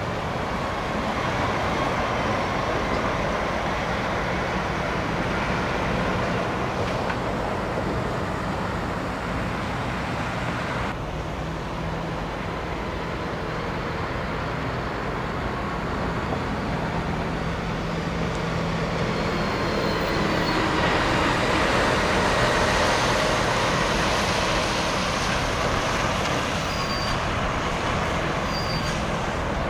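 Heavy trucks' diesel engines running and passing, with steady road traffic noise; the sound swells for a few seconds about two-thirds of the way through.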